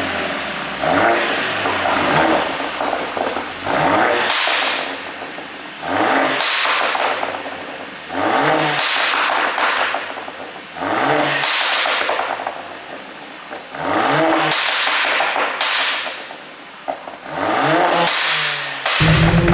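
Mercedes-AMG A45's turbocharged 2.0-litre four-cylinder engine revved again and again, about seven rising revs a few seconds apart. As each rev falls back the exhaust crackles and pops, the effect of a pop-and-crackle tune.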